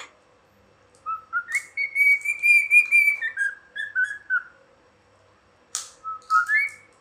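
Cockatiel whistling a tune: a run of clear whistled notes that climb and hold, then step down, from about a second in to past four seconds, followed by a few more notes near the end, with a couple of short raspy bursts between them.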